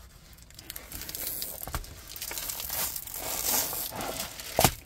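Diamond painting canvas and its plastic cover film crinkling and rustling as it is handled and pulled over, with a sharp knock near the end.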